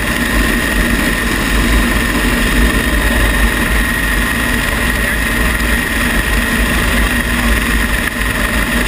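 Rescue helicopter hovering with its rotor and turbine engines running, heard from the open cabin door: a loud, steady din with a constant high whine.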